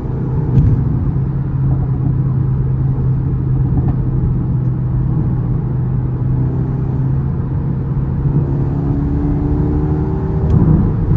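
Mercedes-AMG A35's turbocharged four-cylinder engine and exhaust running steadily under way, with an engine note that rises gently in the second half. A sharp click comes about half a second in and another near the end.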